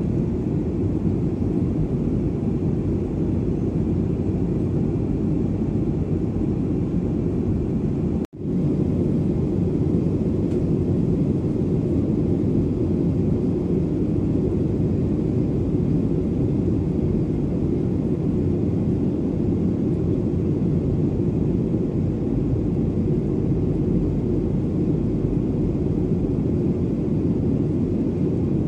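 Steady low cabin drone of a Boeing 737-900ER in cruise: its CFM56 jet engines and the airflow over the fuselage, heard from a window seat. The sound breaks off for an instant about eight seconds in, then carries on unchanged.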